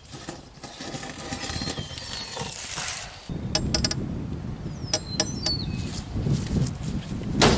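A bronze sword thrust hard into a Geo Metro's side window glass, one sharp impact near the end; the blade bends on the glass rather than going through. Birds chirp briefly in the middle.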